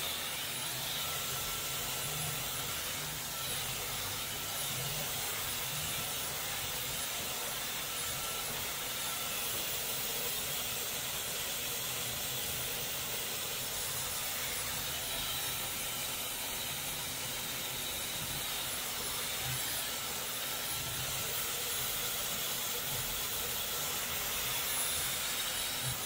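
Dyson Supersonic hair dryer with a comb attachment blowing steadily: an even rush of air while it is combed through hair.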